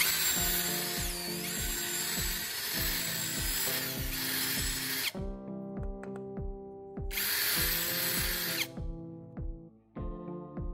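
Power drill with a twist bit boring into a wooden handle to enlarge the hole, running for about five seconds, stopping, then running again briefly about seven seconds in. Background music with a steady beat plays throughout.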